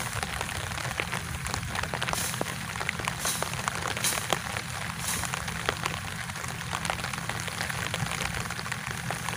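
Steady rain falling on the canal water: a dense patter of many small drops, with a few louder single drop hits scattered through.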